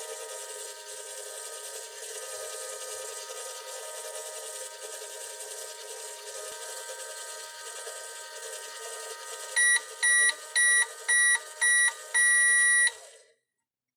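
Toy microwave running its cooking cycle with a steady electronic hum, then finishing with five short beeps and one longer final beep about ten seconds in, signalling the cycle is done.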